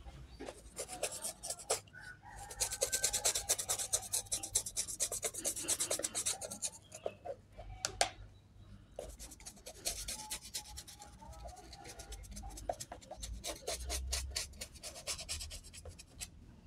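A toothbrush scrubbing the white rubber sole edge of a canvas shoe through detergent suds: rapid back-and-forth brushing strokes in two long spells, with a short break and a single click around the middle.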